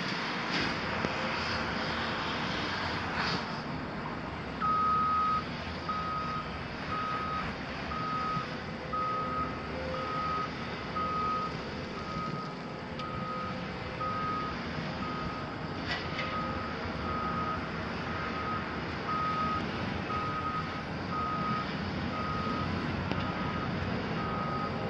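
Reversing alarm beeping at one steady pitch, about four beeps every three seconds, starting about five seconds in, over the running diesel engines of a Caterpillar wheel loader backing up and a Volvo excavator. A single sharp knock comes about two-thirds of the way through.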